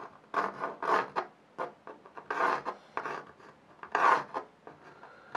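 Drawing pencil scratching across a drawing surface in quick sketching strokes, about eight short rasping strokes at an uneven pace as lines are drawn.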